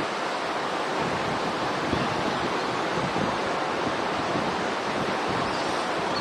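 Steady outdoor rushing noise, even and unbroken, with no calls or distinct events.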